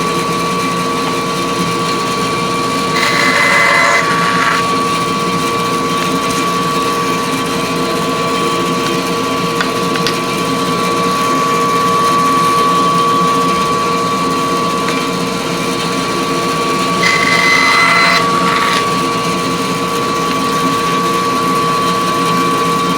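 A bandsaw and a shop vacuum running together with a steady, loud hum. Twice, a few seconds in and again later on, the blade cuts through a wooden board for about a second and a half, slicing off a segment.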